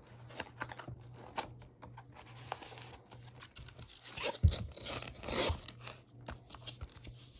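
Plastic and cardboard packaging of a Pokémon trading card box crinkling and rustling as it is handled, with a string of small clicks. A sharp knock comes about four and a half seconds in, followed by a longer, louder rustle.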